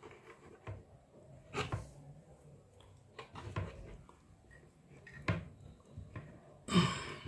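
Hands handling a homemade plastic water-jug incubator while setting eggs inside: scattered soft knocks and rustles of plastic and cloth, with a louder clatter near the end.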